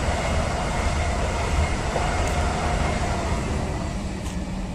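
Deutsche Bahn ICE high-speed electric train passing at speed: a steady rushing rumble of wheels on rail and air, easing slightly near the end as the last cars go by.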